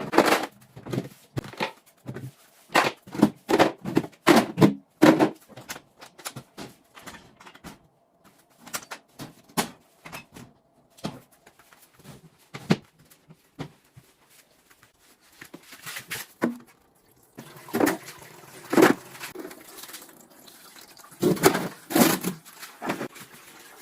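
Irregular knocks, clunks and clatter of an old second-hand refrigerator being handled and cleaned out. The noise is dense at first, thins out in the middle, and comes back in a few louder bursts near the end.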